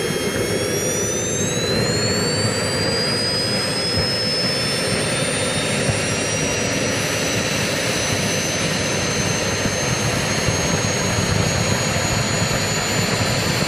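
Homebuilt jet motor for a kayak running, a steady roar under a high whine that climbs over the first few seconds and then holds, creeping slowly higher: the motor is still spooling up as it warms up.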